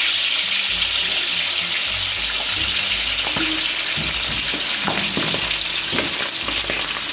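Whole stuffed milkfish (rellenong bangus) deep-frying in hot oil in a large wok, a steady loud sizzle with scattered crackling pops, freshly lowered into the oil. The sizzle eases slightly toward the end.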